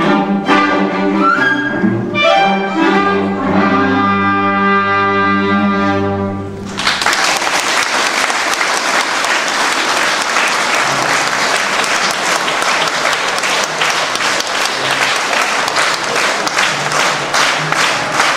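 Symphony orchestra playing the final bars of a piece and ending on a long held chord about six and a half seconds in. The audience then breaks into steady applause.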